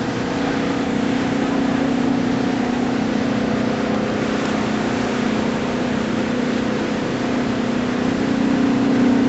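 A steady, unchanging low mechanical hum, a machine running at a constant speed.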